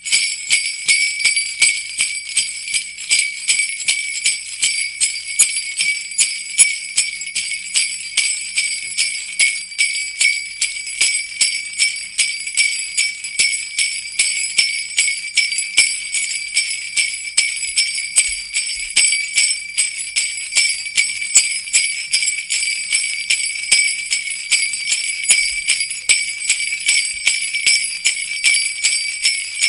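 Sleigh bells shaken in a steady rhythm, a continuous high jingling that swells about twice a second.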